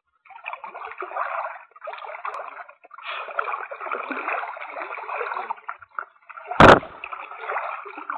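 Shallow river water sloshing and splashing in irregular bursts, with one sharp loud knock about two-thirds of the way through.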